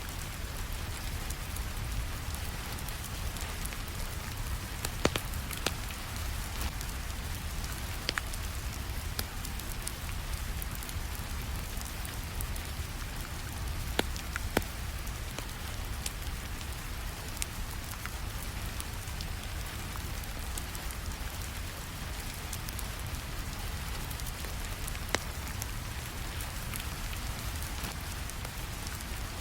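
Steady rainfall, with a few sharp pops and crackles from a wood fire scattered through it.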